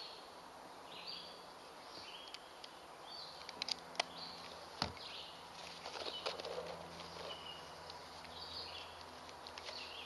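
Birds calling over and over in short high chirps, about one a second, with a few sharp knocks a little before the middle.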